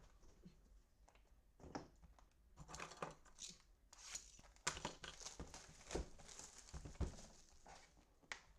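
Plastic card-pack wrapping crinkling and tearing as a pack of baseball cards is opened, with a few sharp clicks among the faint crackling.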